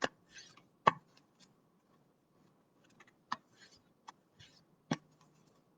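Handling noises: a few sharp taps and clicks, the loudest about a second in, with soft brief rustles in between.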